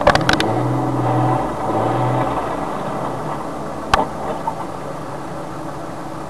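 Car engine idling, heard from inside the cabin, with a low hum in the first couple of seconds. A few sharp clicks come right at the start and another about four seconds in.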